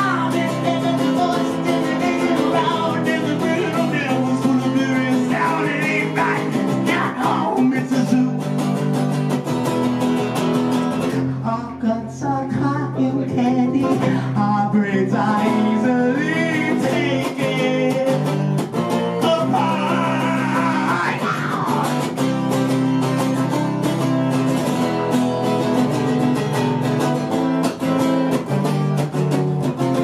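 Acoustic guitar played steadily, with a man singing over it in phrases.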